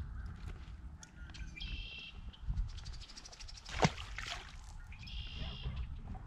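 A single sharp splash in the water just off the boat's bow about four seconds in, the loudest sound here, right after a short run of quickening clicks. A bird gives harsh calls twice, over a low steady rumble.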